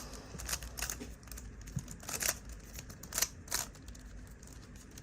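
GAN 11 M magnetic speedcube being turned fast during a speed solve: quick, irregular clicks and clacks of plastic layers snapping into place.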